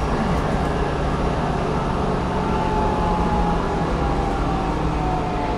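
Cummins ISLe8.9 diesel and ZF 6HP604C automatic gearbox of an Enviro500 double-deck bus running under way, heard inside the passenger cabin as a steady low rumble with road noise. A faint whine drifts slowly down in pitch through the second half.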